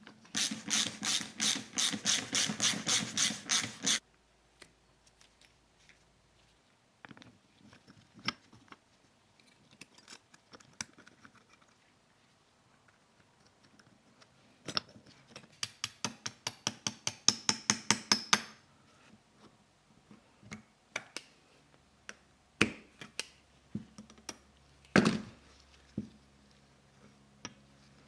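Sped-up workshop sounds of brake caliper rebuild work: two long runs of rapid, even clicking like a ratchet, one at the start and one about halfway through, with scattered single knocks and taps between and after.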